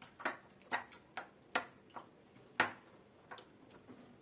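Wooden spoon knocking against the side of a bowl while beating mashed garlic with oil and honey: about ten sharp taps, two to three a second at an uneven pace, the loudest about two and a half seconds in.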